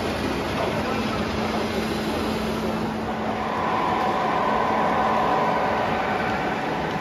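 O scale model train running on three-rail track, a steady rolling sound with a whine that swells as a streamlined model diesel locomotive passes close, about halfway through.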